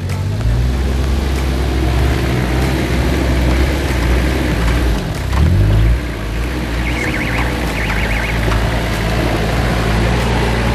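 Four-wheel-drive SUV's engine pulling at low speed over a rocky, rutted off-road track, rising in a brief rev about five and a half seconds in.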